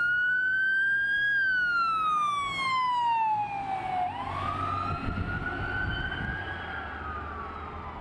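Ambulance's electronic siren on a slow wail: the tone rises, falls, rises again and falls. The ambulance drives past, and its engine and tyres rumble briefly about five seconds in.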